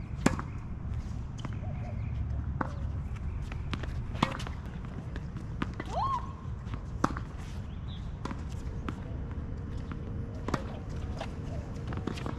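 Tennis balls being hit and bouncing on a court: sharp knocks about once a second at uneven gaps, over a steady low rumble of wind on the microphone. A short rising squeak about six seconds in.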